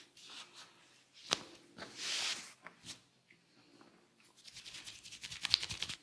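Head massage heard close up: a single sharp click about a second in, a breathy rush, then a fast run of crackling scratches as fingers rub through the hair and over the ear.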